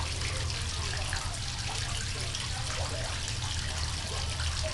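Steady noise like trickling or running water over a continuous low hum.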